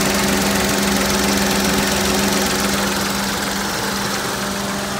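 2006 Daihatsu Boon's engine idling steadily with the air conditioning running and its newly recharged A/C compressor cycling, a constant hum over a broad hiss.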